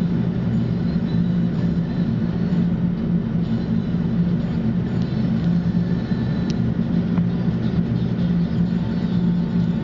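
Steady low hum of an idling vehicle engine.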